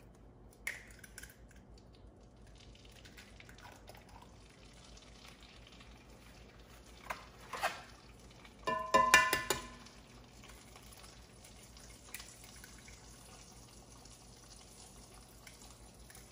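Eggs frying in butter in a cast iron skillet: a faint steady sizzle. A few short knocks break it, and about nine seconds in comes a louder, brief ringing clatter.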